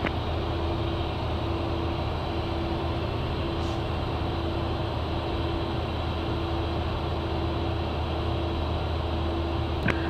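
Steady flight-deck noise of a Learjet 60XR business jet in flight: airflow rush and engine hum, with a faint constant tone under it.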